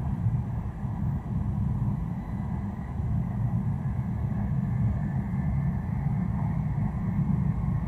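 Steady low rumble of a Tohoku Shinkansen bullet train running at speed, heard from inside the passenger cabin, with a faint steady high tone over it.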